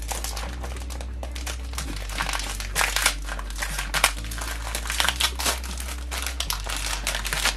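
Plastic packaging crinkling and rustling as it is handled and unwrapped by hand, in irregular bursts with louder crackles around a second, three seconds and four seconds in.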